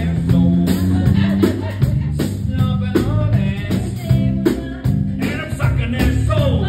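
Live singing by a man and a woman over a strummed small guitar-like instrument (ukulele-sized), with a steady strummed rhythm.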